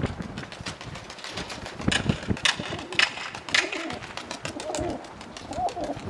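Domestic pigeons, with cooing and a run of sharp wing claps, loudest about two to four seconds in, as a hen pigeon is tossed up and takes flight.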